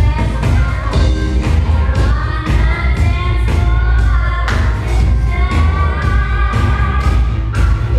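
Song played loud with singing over a heavy bass line and a steady beat: dance-class music.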